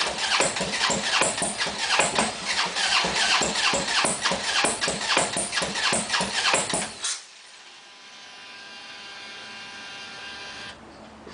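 Harley-Davidson V-twin cranking on its electric starter, pulsing about four times a second without catching: a hard start. The cranking cuts off about seven seconds in, leaving a faint, steady, high whine.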